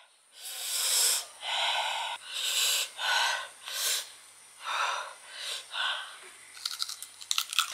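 A person's breathy gasps and hisses, about eight short ones in a row, then quick crunchy clicks near the end as she bites into a firm kedondong (ambarella) fruit.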